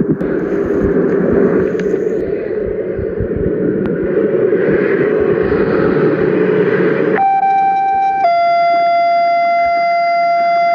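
Electronic siren test. A noisy rumble runs for about seven seconds. Then a steady, buzzy siren tone cuts in abruptly, drops slightly in pitch about a second later, and holds that lower tone.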